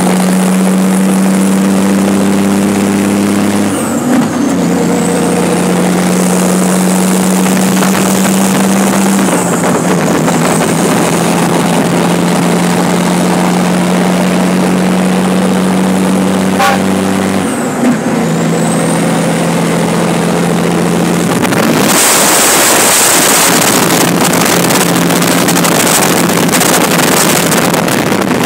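Tipper truck's diesel engine running under way at road speed, a steady engine note that shifts slightly a few times. From about two-thirds of the way in, wind rushes loudly across the microphone.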